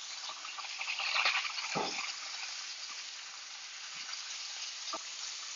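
Lamb shoulder chops sizzling in melted butter in a cast-iron skillet, with a steady hiss that swells briefly about a second in as butter is spooned over the meat. Two faint taps come later.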